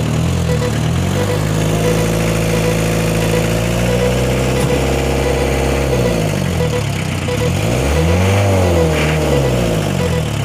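Engine running steadily, then revving up and down several times in the second half, its pitch rising and falling.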